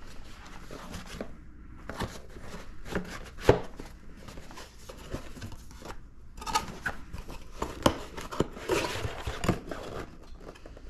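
Cardboard product box being handled: scattered taps and knocks, then paperboard rubbing and scraping as the lid is folded shut, busiest about two-thirds of the way through.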